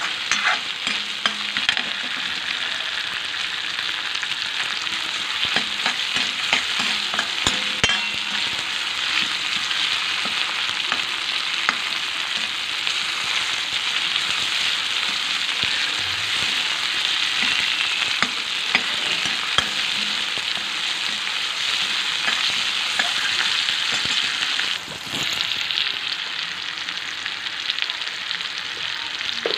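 Chopped tomatoes frying in hot oil with whole spices in a metal kadhai: a steady sizzle, with the clicks and scrapes of a steel spoon stirring against the pan.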